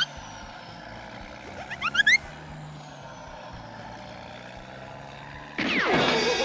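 Cartoon-style sound effects over a steady low hum: a quick rising whistle-like glide about two seconds in, and near the end a louder falling glide that breaks into a wobble.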